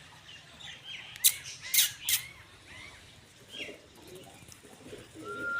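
Pet parrot chirping, with three loud, sharp squawks in quick succession about a second in. Near the end it gives lower calls and a short, steady whistled note.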